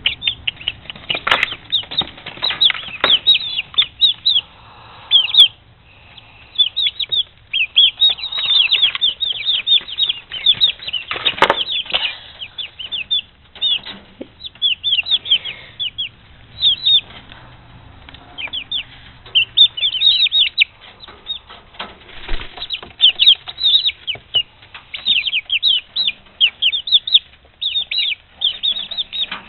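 Six-week-old chicks peeping nearly nonstop: short, high, downward-sliding peeps, many a second, with a few louder flutters and rustles mixed in, loudest around 11 seconds in.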